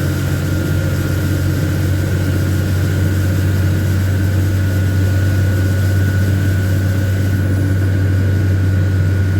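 LMTV military truck's diesel engine running steadily: a low, even drone with a thin, steady high whine above it.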